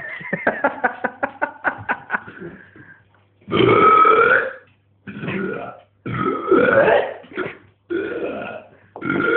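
A man belching loudly on purpose: a long rattling burp of rapid pulses, about seven a second, for the first two seconds or so, then five shorter burps one after another.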